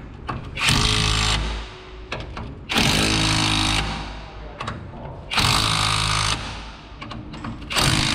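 Cordless driver with a socket running in four short bursts of about a second each, snugging the wheel adapter's nuts one after another. They are only drawn down lightly, without final tightening.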